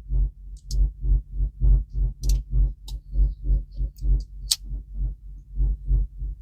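Background music with a steady low pulse about three times a second, with a few sharp clicks from a Leatherman Signal multitool being handled.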